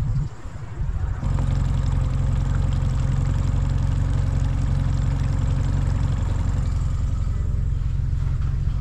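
Small boat's motor running steadily at low trolling speed, a low even drone that settles in about a second in.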